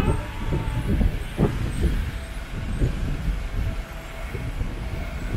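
Street traffic: vehicles rumbling past, a continuous low rumble with a few short thuds.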